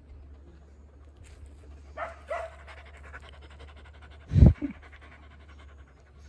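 Dog panting, with two short, higher-pitched sounds about two seconds in and one loud, low thump a little past four seconds.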